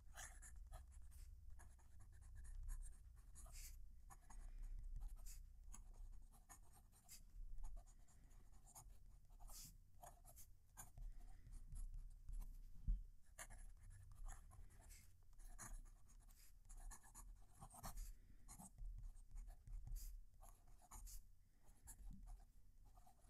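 Kaweco Sport Classic fountain pen with a broad nib writing on paper: faint, scratchy strokes that come and go as words are written. The writer feels the nib catching on the paper, which he finds unusual.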